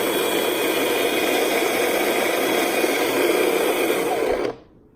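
Krups electric grinder running steadily, grinding whole flaxseed, its motor noise and rattle cutting off suddenly about four and a half seconds in.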